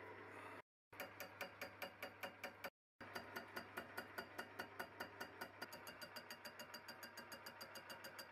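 Fly cutter on a Myford Super 7B lathe's faceplate taking an interrupted facing cut on mild-steel angle iron: a light, regular tick each time the single tool hits the work, about five a second, over the lathe's steady motor hum.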